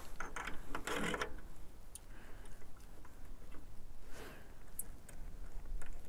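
A few faint clicks and light handling rustles as a 25 mm eyepiece is fitted into the focuser of a Sky-Watcher 8-inch Dobsonian telescope, over a low steady rumble.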